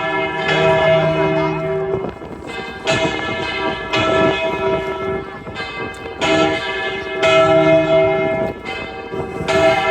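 Church bells of the Almudena Cathedral ringing. Several bells of different pitches are struck again and again at uneven intervals, each stroke ringing on and overlapping the next.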